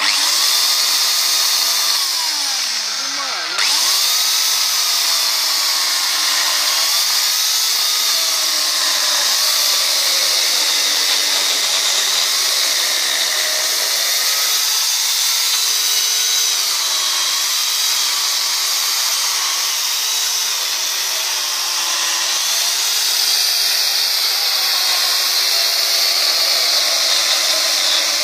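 Intertool DT 2204 electric chainsaw cutting through a log, its motor whine running continuously and wavering in pitch as the chain bites into the wood. The pitch sags sharply about three seconds in as the saw loads up, then recovers.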